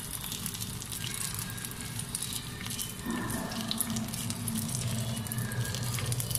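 Bread slices frying in a pan, with a steady crackling sizzle. A low steady hum joins in about halfway through.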